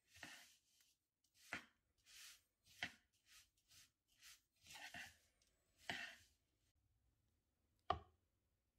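Metal teaspoon stirring ground pistachios and dry crumbs in a bowl: a run of soft scraping swishes, one or two a second, with sharp clicks of the spoon against the bowl, the sharpest near the end.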